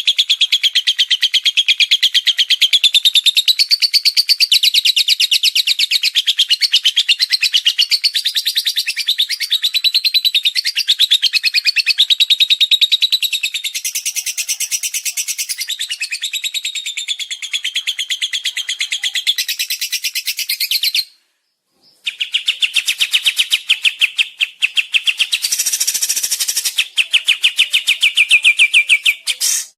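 Songbird singing a continuous, rapid-fire high-pitched trilling song of the kind called 'tembakan'. It cuts out for about a second some twenty seconds in, then resumes.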